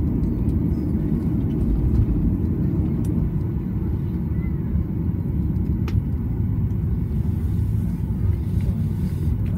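Steady low rumble inside the cabin of a Boeing 737-800 taxiing: its CFM56 engines running at idle and the airliner rolling on the taxiway, heard through the fuselage.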